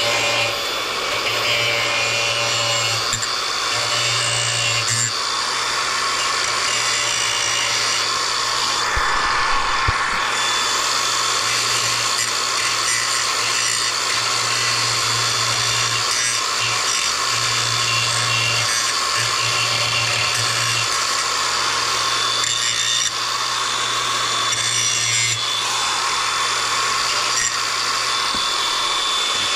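Power grinder grinding down the cut edges of a condenser fan motor's steel shaft: a loud, continuous grinding of metal with small rises and falls as the tool is worked.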